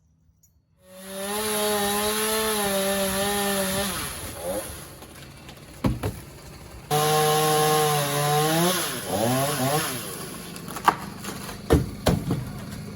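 Two-stroke chainsaw running at high revs through ficus wood, twice. Each time the pitch drops and the engine slows as the throttle eases. A few sharp knocks come near the end.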